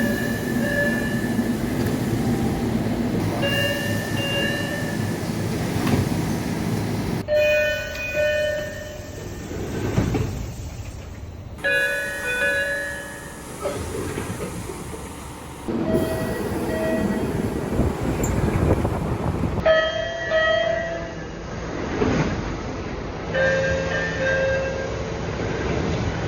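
MBTA Orange Line subway cars' exterior door chimes, played one clip after another: about seven short electronic chimes of a few held tones each, over the rumble of a train standing at the platform.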